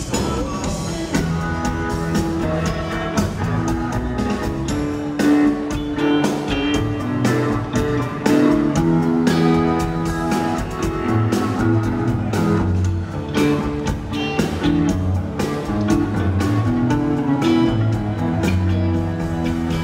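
Live rock band playing an instrumental passage: electric guitars and electric bass over a drum kit keeping a steady beat.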